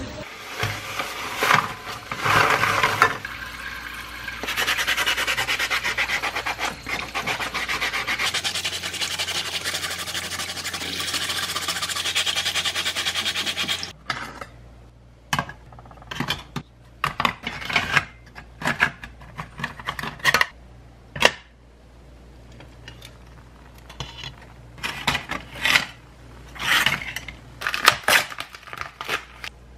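A steady rushing hiss for about ten seconds stops suddenly. It is followed by plastic film crinkling and rubbing in short, irregular bursts as it is peeled off a frozen octopus in a plastic tray.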